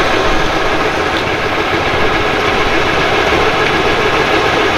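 A large homemade variable-pitch boat propeller spinning steadily in open air on a test stand: a constant mechanical running hum from the shaft and drive, mixed with the rush of air off the blades.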